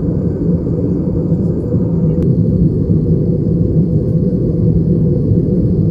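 Steady in-flight cabin noise of an Airbus A320-214, its CFM56-5B engines and the airflow past the fuselage heard as an even low rumble with a steady hum. A faint click about two seconds in.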